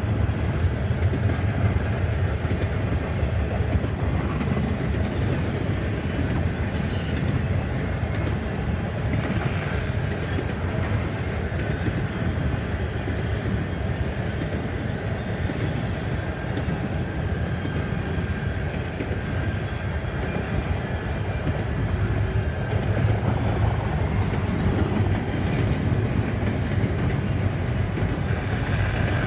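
Long freight train of double-stack container cars rolling past, a steady rumble of wheels on rail.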